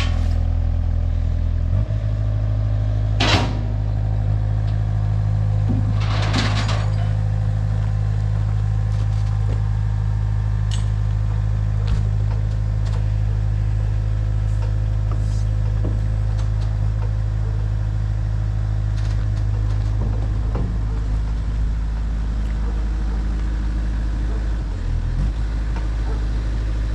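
A vehicle engine running steadily at a low, even pitch, shifting pitch about two seconds in and again near the end, with two short hissing bursts around three and six seconds in.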